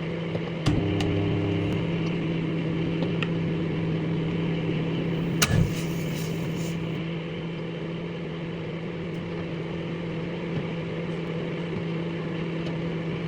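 Microwave oven running with a steady hum, heating a tennis ball. About five and a half seconds in there is a sharp crack followed by about a second of high crackling hiss.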